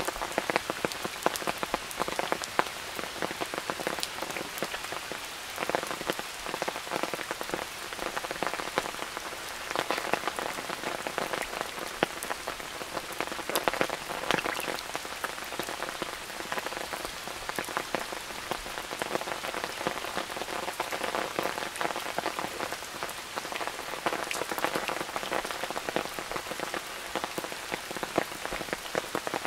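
Steady rain falling, with many sharp, close drop hits over a constant hiss.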